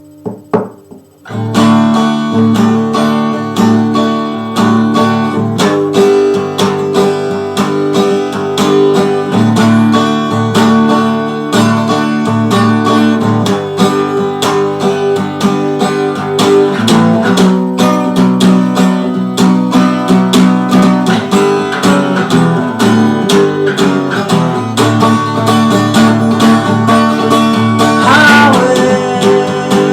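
Acoustic guitar strummed in a fast, steady rhythm through changing chords. It starts after a brief, nearly quiet pause with a few single notes, about a second and a half in.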